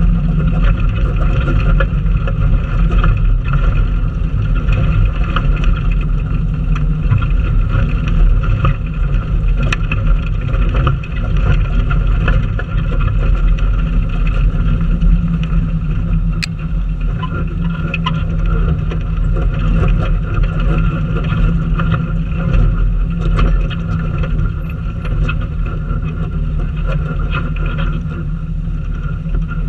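Off-road vehicle crawling slowly over a rocky trail: a steady low engine drone, with many short clicks and crunches of the tyres on loose stones.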